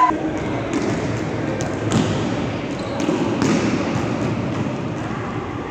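A volleyball struck a few times during play, sharp slaps and thuds echoing around a gymnasium, over a steady murmur of players' voices.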